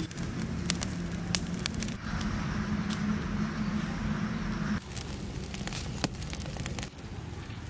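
Open fire of dry leaves and twigs crackling, with sharp snaps and pops scattered throughout, as a whole goat skin is held in the flames to singe off its hair.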